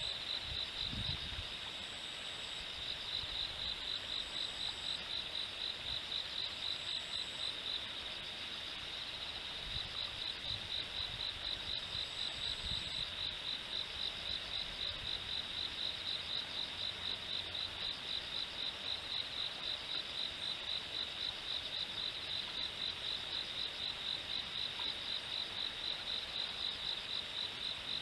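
Insects chirping in a steady pulsing rhythm, about three pulses a second, with a fainter, higher buzz that comes in briefly several times in the first half.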